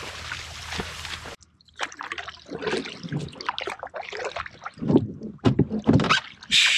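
Dry marsh grass rustling steadily as a deer carcass is dragged through it; then, after a sharp break about a second and a half in, a canoe paddle stroking the water, with irregular splashes, sloshing and trickling.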